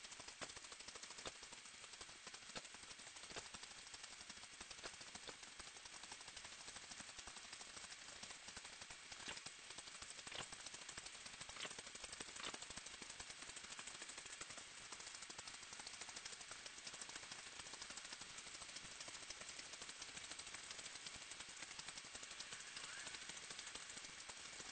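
Faint, dense crackling hiss made of many rapid tiny clicks, steady throughout.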